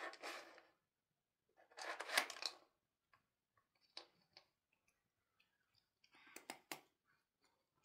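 Plastic rattling and scraping from a round treat-puzzle toy as a cat paws at it and shifts its white balls around the track: two scratchy bursts, a click, then a quick run of sharp clicks near the end.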